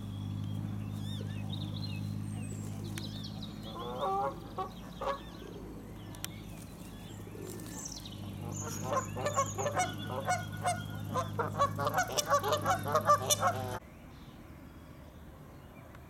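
Canada geese honking: a few honks about four seconds in, then a rapid run of many louder honks, over a steady low hum. The sound cuts off suddenly near the end.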